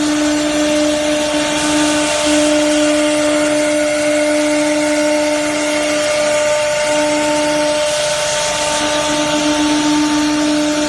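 Spindle of a multi-spindle CNC router whining with a steady tone as its bit routes grooves into a wood board, with cutting hiss over it. The hiss rises briefly about two seconds in and again about eight seconds in.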